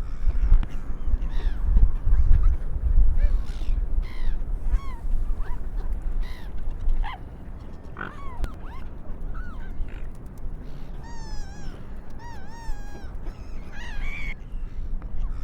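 Seagulls and swans calling: many short calls that bend up and down in pitch, with a run of quick wavering calls about two-thirds of the way through, over a low rumble.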